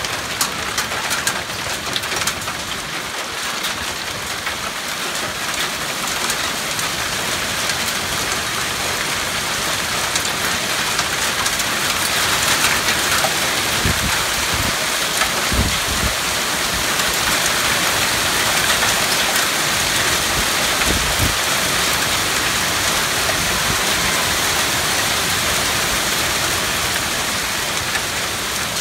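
Hail and heavy rain pelting down on pavement, gravel and a wooden deck: a dense, steady hiss with fine ticks of hailstones striking, growing heavier about halfway through. A few low rumbles come in the middle.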